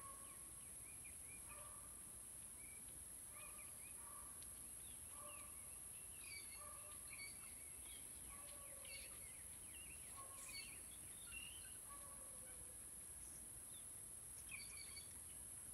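Faint bird calls outdoors: a short call repeated about once a second, with scattered higher chirps, over a steady high hiss.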